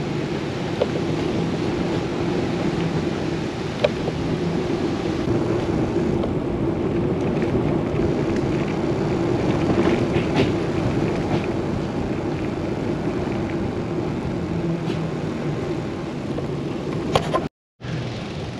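Steady rushing noise of road and wind, with a low droning hum that comes and goes and a few sharp clicks; the sound cuts out briefly near the end.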